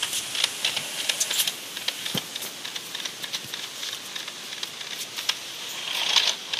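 Battery-powered New Bright RC toy buggy rolling over brick pavers: a scatter of light clicks and rattles over a soft hiss, with a short higher whine near the end.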